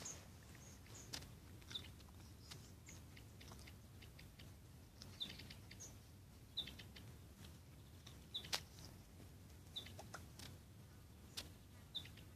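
Faint outdoor quiet with short, high bird chirps every second or two, and a few sharp clicks scattered through it.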